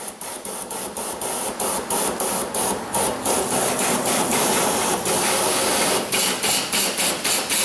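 Air-and-water flush gun hissing and spraying in rapid pulses, about four a second, into an engine block through the water pump opening. It is blasting out coolant sludge that is mud-like and clogs the cooling system.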